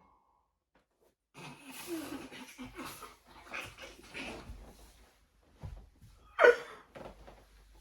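A young man gasping, coughing and gagging on a hot, foul-tasting drink, with one loud strained cry about six and a half seconds in.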